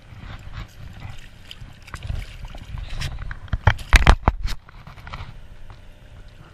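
A hooked fish splashing and slapping in shallow water as it is hand-lined in, with a few sharp, loud slaps about four seconds in. Wind rumbles on the microphone.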